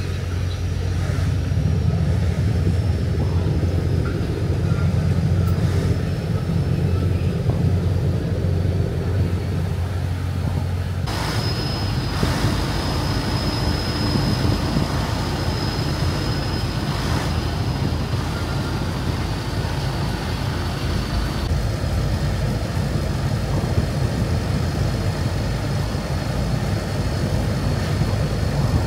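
Ferry's engines running with a steady low drone and a faint high whine above it, heard on the open deck. The drone changes abruptly about eleven seconds in and again near twenty-one seconds.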